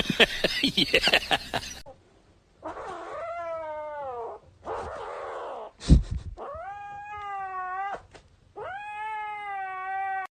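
A cat yowling: four long, drawn-out meows, each one to two seconds long, with a single thump about six seconds in. A person's voice is heard briefly at the very start.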